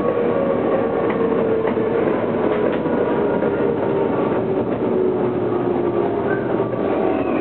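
Onboard running sound of a Tokyo Metro 05 series train with Toshiba IGBT-VVVF inverter control. The inverter and traction-motor whine falls steadily in pitch over the wheel and rail noise as the train slows into a station.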